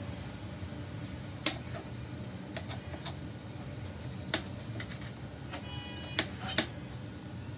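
Kitchen knife cutting green bell pepper on a plastic cutting board: several irregular sharp taps of the blade hitting the board, the loudest about a second and a half in, over a steady low hum.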